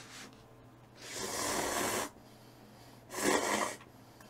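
Breathy mouth sounds of someone eating instant cup ramen: one noisy sound lasting about a second, then a shorter, louder one a little after three seconds in.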